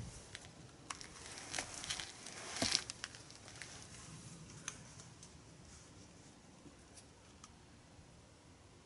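Air rifle being handled while it is loaded and brought to the shoulder: a few small clicks and rustles, the loudest a sharp click about two and a half seconds in. After that only faint background hiss while the shooter aims.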